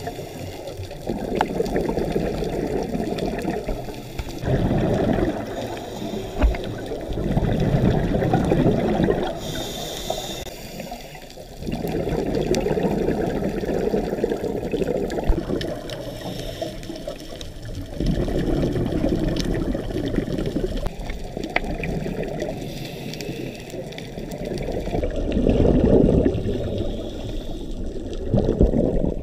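Scuba diver breathing through a regulator, heard underwater: muffled bubbling bursts of exhaled air lasting two to four seconds each, with short quieter gaps between breaths and a brief higher hiss about ten seconds in.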